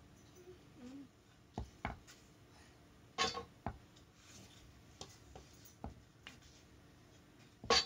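Scattered wooden knocks and clacks, about eight in all, as the wooden pieces of a baby gym frame (dowel crossbar and legs) are handled and fitted together; the loudest knock comes near the end.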